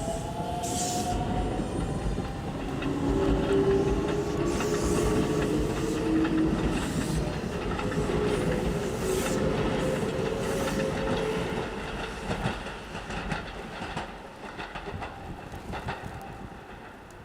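An electric commuter train running close by. Its steady tones and rumble are loudest for the first ten seconds or so, then give way to wheels clacking over rail joints that fade as it moves off.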